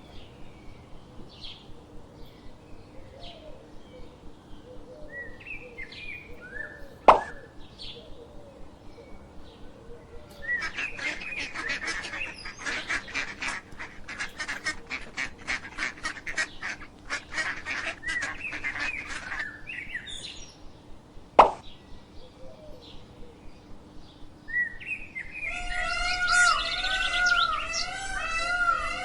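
Birds chirping: faint regular chirps, a long stretch of dense rapid chirping in the middle, and repeated rising-and-falling calls near the end. Two sharp clicks stand out, one about a quarter of the way in and one about two-thirds of the way in.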